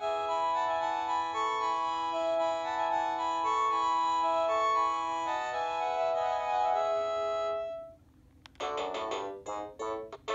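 Panasonic KX-TGEA40 cordless phone handset playing a synthesized polyphonic ringtone, a melody of held organ-like chords that fades out about eight seconds in. After a short pause a different ringtone of short, clipped notes starts.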